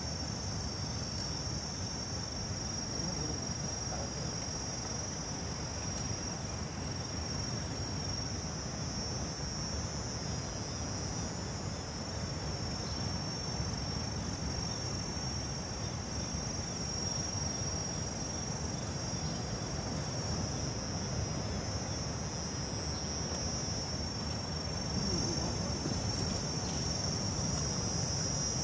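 Steady, high-pitched drone of an insect chorus, with a low rumble underneath.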